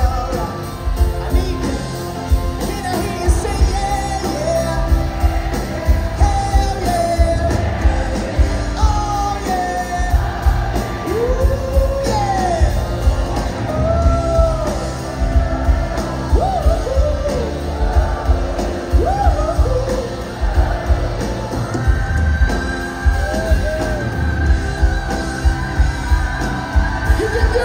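Live pop-rock band playing over a steady drum beat, with electric guitars and a singer's voice sliding up and down in long notes.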